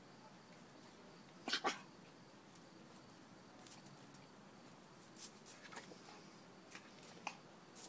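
Small fluffy dog pawing at a dung beetle on a tile floor: two quick sharp noises about one and a half seconds in, then a few faint light taps of its claws on the tiles.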